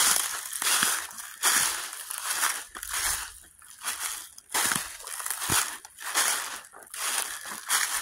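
Footsteps crunching through dry fallen leaves at a steady walking pace, about one step every three-quarters of a second.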